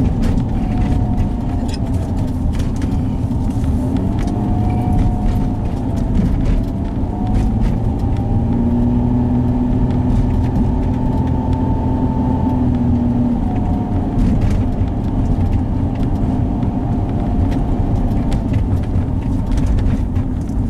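Car cabin noise while driving: steady engine and tyre rumble with occasional light knocks. Over it runs a faint whine that wavers up and down in pitch, which the driver puts down to his broken CD player.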